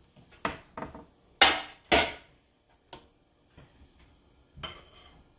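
A metal sheet pan with a wire rack set down on a stone countertop: a few light clinks, then two sharp metallic clatters about half a second apart. Near the end, a softer clink of a metal utensil against the pot.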